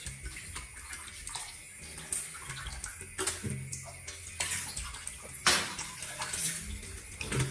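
Water splashing in an aluminium basin as a hand scoops it and pours it over a baby monkey being bathed, in irregular splashes, the loudest about five and a half seconds in.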